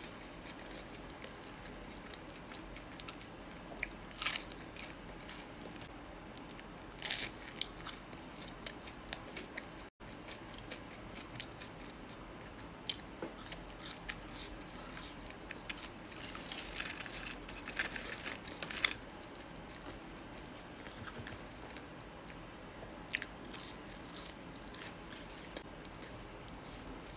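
Close-up eating sounds of McDonald's food: crunchy bites and wet chewing, with scattered sharp crackles and clicks, a cluster of them heavier after about sixteen seconds.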